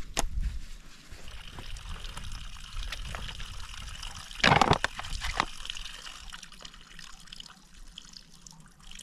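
Spring water trickling steadily from a small spout as a plastic water bottle is held under it to fill. There is a brief, louder rush of noise about halfway through.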